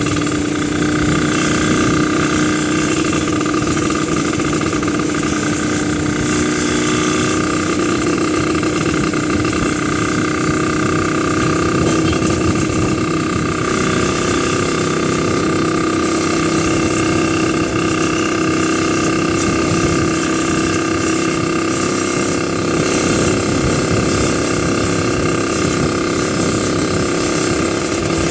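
Yamaha MX King motorcycle engine running steadily, held at constant revs.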